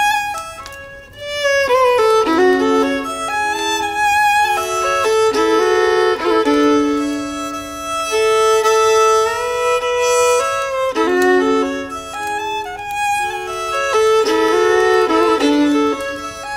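Several violins playing a slow tune together, with long held notes and two parts often sounding in harmony.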